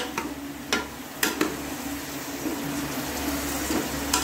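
Chunks of meat sizzling as they fry and brown in oil in a metal pot, while a metal ladle stirs them and clinks and scrapes against the pot a few times, mostly in the first second and a half and again at the end.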